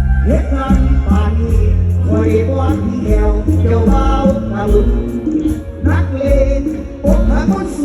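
A live band playing a Thai luk thung song, with heavy bass and a steady cymbal beat, and a voice singing over it.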